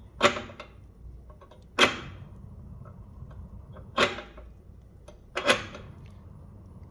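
Four sharp knocks, a second or two apart, of firewood logs being laid into a small cast-iron stove's firebox.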